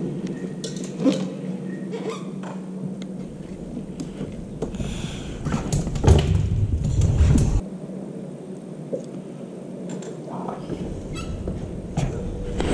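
Small clicks and knocks of hands working fishing line and a crappie jig in a boat. A louder low rumble on the microphone comes about five and a half seconds in and lasts about two seconds.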